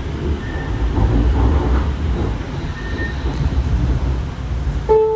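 Interior of a Sound Transit Series 2 light-rail car running, a steady low rumble. Near the end a chime begins: the first, higher note of the signal that comes before the next-stop announcement.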